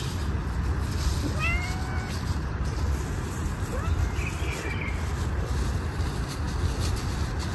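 A stray cat meowing: one clear meow a little over a second in and a fainter one about four seconds in, over a steady low rumble.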